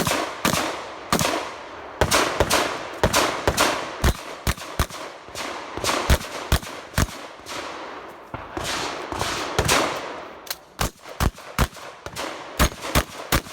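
Remington 870 pump-action shotgun fired in a rapid, irregular string of shots, several a second, each shot echoing.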